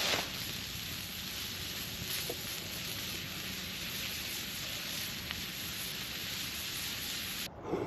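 Steak sizzling over a campfire, a steady hiss with the odd crackle from the fire. The hiss cuts off abruptly near the end.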